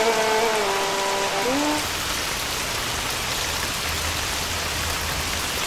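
Steady heavy rain falling and pattering on surfaces. Held, sliding notes of background music fade out about two seconds in, leaving only the rain.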